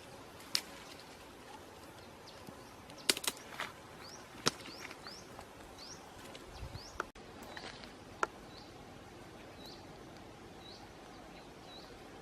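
A small bird giving a run of short, high, rising chirps, about two a second, over a steady low background hiss. A few sharp clicks or snaps come in the first part, the loudest a cluster about three seconds in.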